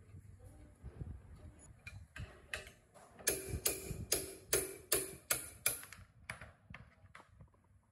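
Hammer striking a steel bar against the end of an electric motor's shaft, a regular run of a dozen or so sharp metallic taps at about two to three a second, loudest in the middle, knocking the plastic cooling fan off the shaft.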